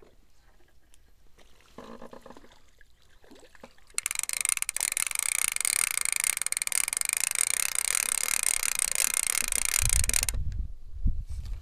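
Spinning reel on a feeder rod being cranked fast, its gears making an even, rapid ticking that starts about four seconds in and stops sharply some six seconds later. A few low thumps follow near the end.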